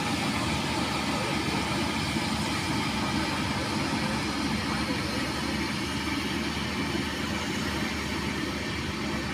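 Combine harvester engine running steadily as it cuts rice.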